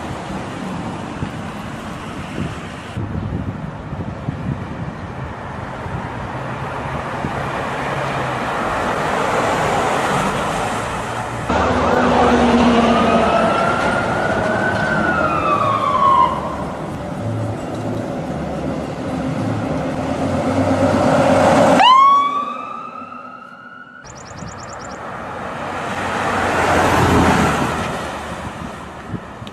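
A string of spliced recordings of American ambulance sirens over traffic noise. In the middle a siren tone glides up and then down in pitch; a little later another siren starts abruptly and climbs in pitch; near the end a rushing noise swells and fades.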